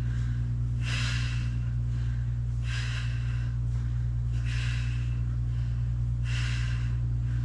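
A woman's sharp, forceful breaths during glute bridge reps, four short hissy puffs about two seconds apart, one per rep, over a steady low hum.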